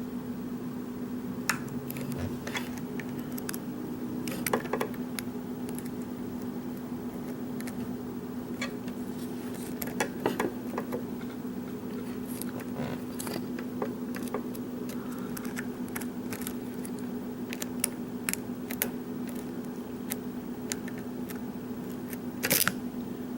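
Lock pick working the pins of a Schlage pin-tumbler lock: scattered small metallic clicks and ticks, a few louder ones, over a steady low hum.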